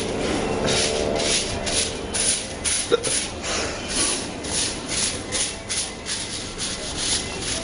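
A long-handled broom sweeping across a concrete floor, pushing bits of eggshell, in repeated scratchy strokes about two to three a second. There is a single sharp knock about three seconds in.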